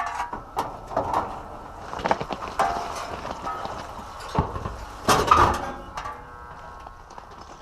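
Irregular metallic clanks, knocks and rattles of hands and tools working at an air-conditioner compressor's terminal connections, with the loudest cluster of knocks about five seconds in.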